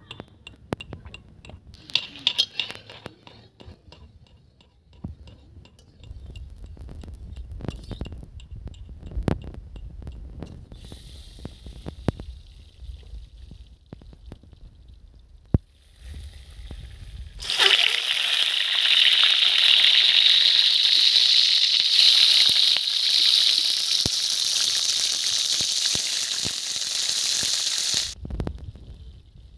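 Peeled boiled eggs frying in hot oil in an iron kadai, a loud steady sizzle that starts suddenly just past halfway and stops abruptly near the end. Before it, scattered clicks and a low rumble.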